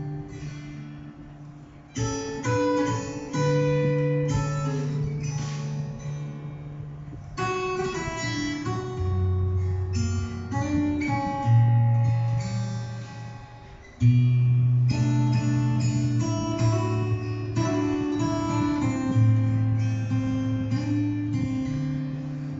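Acoustic guitar music, notes plucked and chords strummed in phrases, with a low bass line; the playing drops away about two seconds in and again near the middle before picking up.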